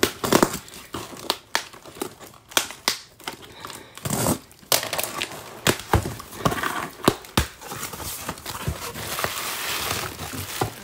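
A cardboard box being opened by hand: sharp taps and scrapes as the tape is slit and the flaps are pulled open, then bubble wrap crinkling as the packed item is drawn out near the end.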